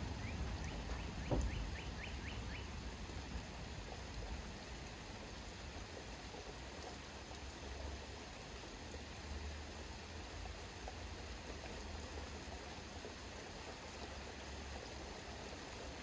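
Backyard storm ambience: a steady soft hiss of rain over a low distant rumble. A bird gives a quick run of high chirps in the first couple of seconds, and a single low thump comes just over a second in.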